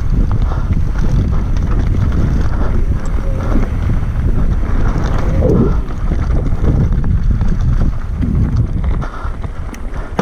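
Wind buffeting the microphone over the continuous rattle and crunch of a mountain bike rolling fast down loose rock and gravel, picked up by a camera mounted on the bike. It eases off a little near the end.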